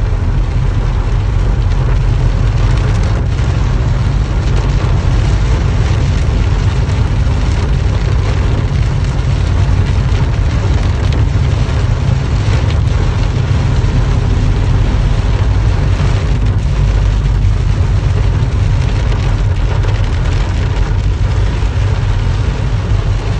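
Torrential rain hitting a moving car's windshield and roof, heard from inside the cabin, over a steady low rumble of the car driving. Loud and even throughout, with a dense patter of drops.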